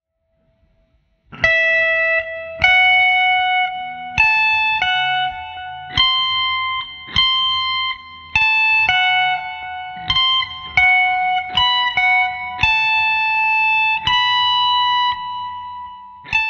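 Electric guitar playing a slow blues lead lick mixing major and minor pentatonic notes, one picked note at a time at roughly a note a second, each note ringing on until the next. It starts about a second in, and the last note is cut off at the end.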